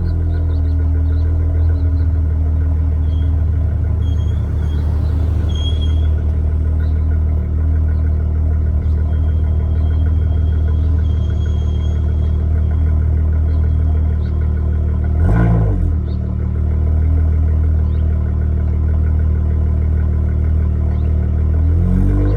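Dodge Charger SXT's V6 idling steadily through Flowmaster Super 10 mufflers while warming up, with one short rise and fall in engine pitch about two-thirds of the way through.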